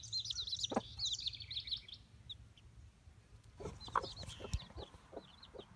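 Newly hatched chicks peeping rapidly and high-pitched, with a broody hen's short low clucks now and then. The peeping thins out in the middle and picks up again about three and a half seconds in.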